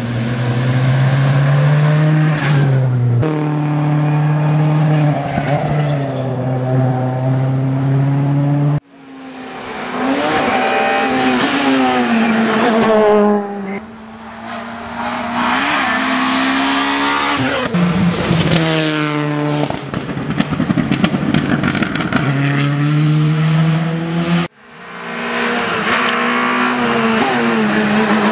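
Rally cars at full speed passing on a tarmac stage, the first a Ford Focus WRC with its turbocharged four-cylinder engine. The engines rev hard and drop in pitch at each gear change, with tyres squealing through the corner. The passes are separated by abrupt cuts, and about two-thirds of the way through there is a spell of rapid crackling.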